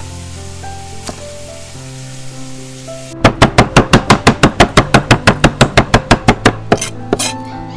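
Background music, then rapid chopping with a knife on a cutting board starting about three seconds in: an even run of about twenty strokes, roughly six a second, which stops near the end.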